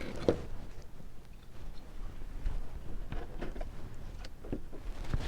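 Faint handling noises: scattered small clicks and taps of metal costume-jewelry brooches being set down and picked up, over a low steady hum.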